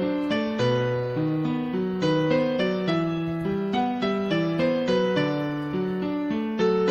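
Background piano music: a gentle, even stream of single notes, about three a second.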